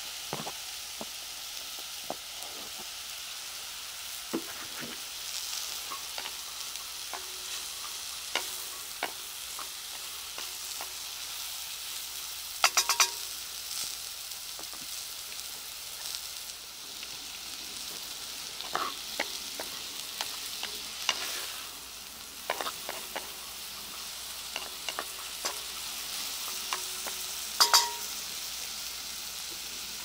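Diced onions and bacon lardons sizzling in a cast-iron Dutch oven, stirred now and then with a wooden spatula. A steady hissing sizzle runs under scattered sharp clicks, with two short bursts of clicks, about thirteen seconds in and near the end, the loudest.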